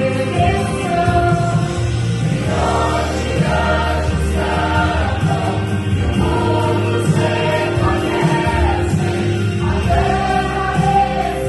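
Vocal group singing a gospel song in several-part harmony over a steady instrumental bass, in phrases of a couple of seconds.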